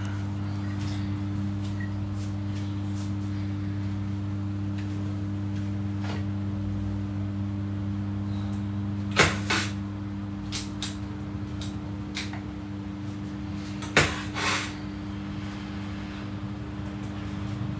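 A steady low hum, with a few sharp knocks and clicks over it; the loudest knocks come about nine and fourteen seconds in.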